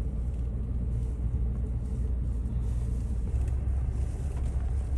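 Truck driving across frozen lake ice: a steady low rumble of engine and tyres.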